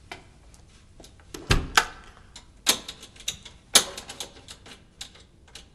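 Irregular knocks and clicks of objects being handled by hand, with a heavier thump about a second and a half in and two sharp knocks in the middle.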